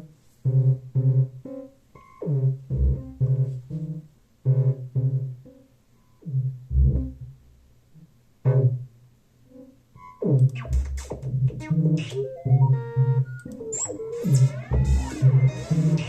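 Electronic music played on hardware synthesizers and a groovebox: short repeated synth bass and chord notes, with a deep low hit about every four seconds. About ten seconds in, more layers come in, with pitch-gliding synth lines and fast high ticks like hi-hats.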